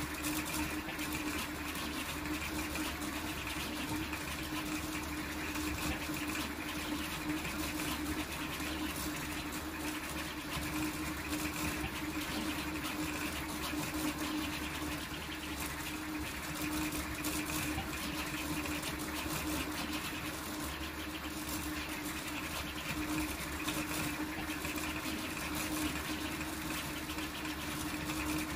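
Large toolchanger 3D printer running a high-speed print: its motors hum with a steady tone as the print head darts back and forth, over an even rush of cooling-fan noise.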